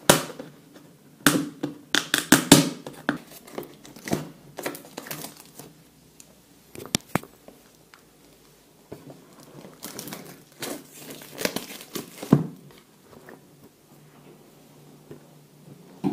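Plastic wrapping on a product box being torn and crinkled off as the box is unwrapped, in two spells of irregular crackling and tearing: at the start and again about ten seconds in.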